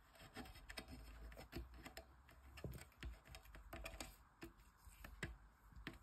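Faint, irregular small clicks and taps of fingers pressing a rubber door edge protector strip into the grooves of a light bar housing.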